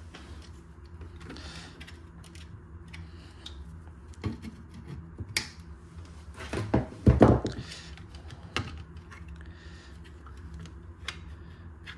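Small clicks, taps and rustles of hands working on plastic fittings as a zip tie is taken off and the SureStop water switch's plastic cover is pushed back onto its base, with a louder clatter about seven seconds in. A steady low hum runs underneath.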